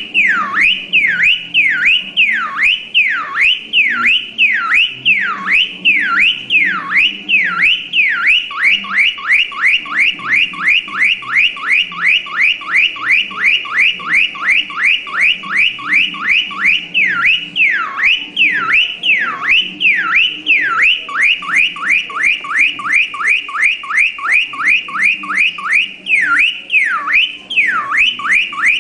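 Electronic car alarm siren sounding loudly: a falling whoop repeated about twice a second, switching to a faster warble of about four a second from around 8 s in, slowing again around 17 s and 26 s.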